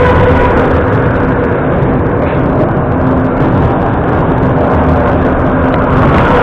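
Vintage metro train running at speed: a loud, steady rumble of wheels on rail under a steady motor whine.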